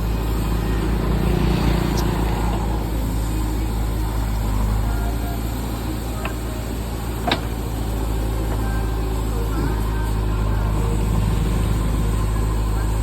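JCB 3DX Eco backhoe loader's diesel engine running steadily under work, with a sharp knock about seven seconds in.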